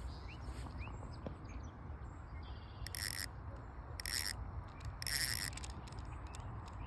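Three short hissing bursts about a second apart while a hooked bass is being fought on rod and reel, over a low steady rumble.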